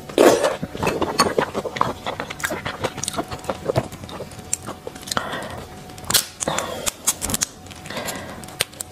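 Close-miked slurping and chewing of shrimp meat, loudest just after the start. Then the shell of a red devil shrimp cracks as it is peeled apart by hand, in many small sharp clicks.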